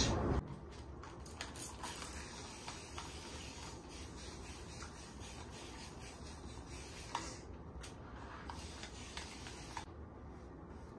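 Paintbrush strokes spreading watery whitewash paint over a wooden dresser top: faint rubbing with a few light taps, stopping near the end.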